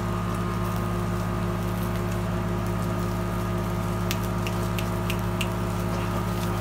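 Steady machine hum with several pitches held throughout, and a few light clicks between about four and five and a half seconds in from a knife scraping the charred skin of a singed sheep's head and trotters.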